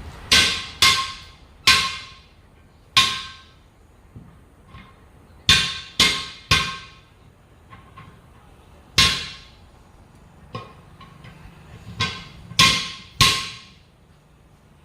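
Hand hammer striking the steel of a truck wheel, about a dozen sharp blows at uneven spacing, each ringing briefly with a metallic tone, in groups of two or three, as in working a 10.00 R20 truck tyre on or off its rim.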